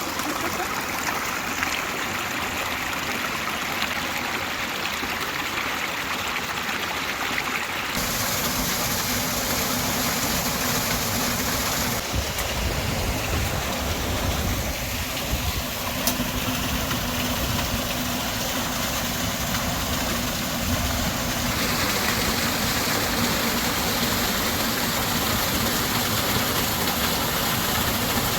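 Small waterfall and stream: a steady rush of falling and running water. Its tone changes abruptly about eight, twelve and twenty-one seconds in, with a deeper rumble from about eight seconds on.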